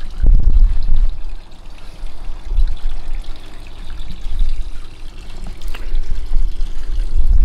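Wind buffeting the microphone: a gusty low rumble that swells and fades in uneven surges.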